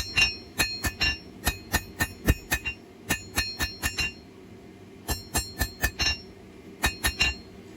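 Blacksmith's hand hammer striking hot steel on an anvil, each blow ringing, about three a second for the first four seconds, then two shorter runs of blows with pauses between: forging an offset into a knife blank that will become a finger notch on the spine.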